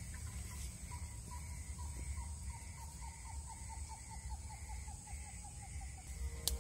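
A bird calling a long run of short, slightly falling notes, about three a second, that fades out near the end, over a low steady rumble. A sharp click comes at the very end.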